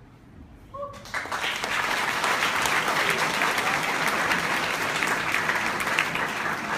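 Audience applause with cheering, breaking out suddenly about a second in and then going on as dense, loud clapping.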